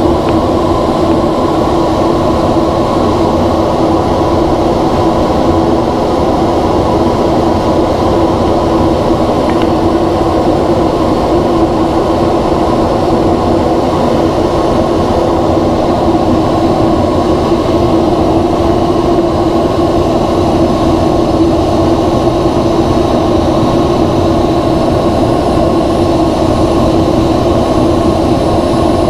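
Steady cockpit noise of a NASA ER-2 high-altitude aircraft in cruise, from its single General Electric F118 turbofan engine and the airflow. It is a constant loud rumble with a steady hum in it and no change throughout.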